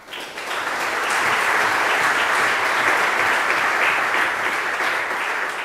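Audience applauding: the clapping starts at once, reaches full strength within about a second, and begins to die away near the end.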